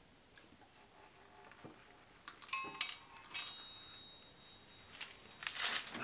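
Crankshaft of a 2.0 TSI engine being lifted out of the upside-down block: a few sharp metal clinks between about two and a half and three and a half seconds in, the last one ringing on briefly, then a short rustle near the end.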